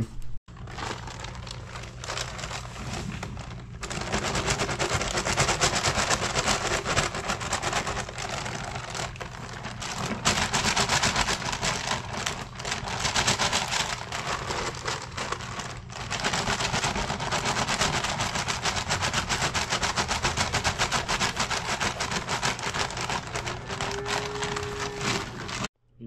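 Paper bag of agricultural lime rustling and crinkling as the lime is shaken out into plastic buckets: a dense crackle that grows louder about four seconds in.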